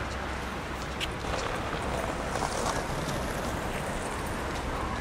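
Steady outdoor rushing noise with a low rumble and a couple of faint clicks.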